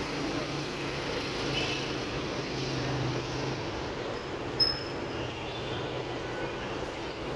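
Steady city traffic noise, a low rumble of passing vehicles, with one sharp click about four and a half seconds in.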